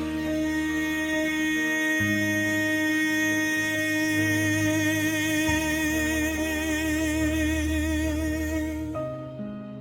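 Slow ballad: a singer holds one long final note with vibrato over soft sustained chords, fading out near the end as a few gentle keyboard notes come in.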